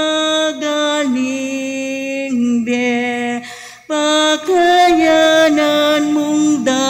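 A slow church hymn sung in long held notes, with a short break about three and a half seconds in before the next phrase begins.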